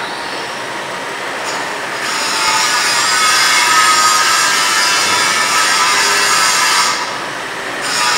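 Stick-welding arc from a 6011 electrode: a steady, loud crackling hiss. It grows louder a couple of seconds in and dips briefly near the end before picking up again.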